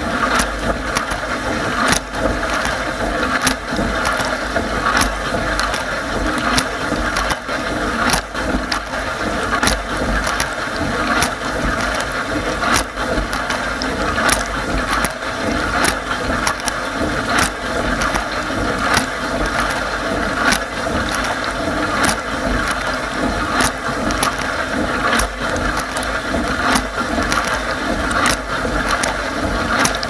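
Bosch dishwasher running its wash cycle, heard from inside the tub: a steady rush of water spray, broken by frequent sharp ticks as jets and drops strike the racks and the camera.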